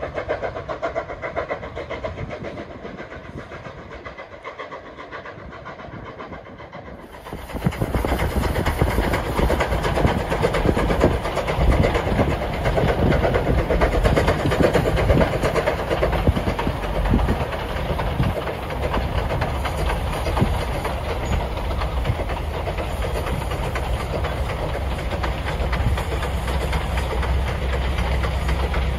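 A distant steam train heard faintly as it pulls away, then, from about seven seconds in, a sudden loud, steady rush of road and wind noise from a moving car pacing the train.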